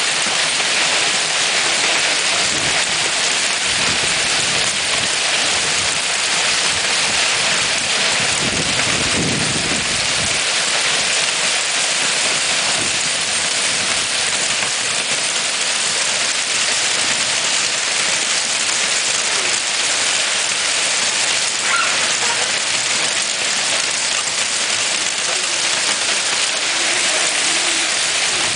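Hail mixed with rain falling steadily on a courtyard of rubber patio tiles and garden plants: a dense, even hiss of countless small impacts.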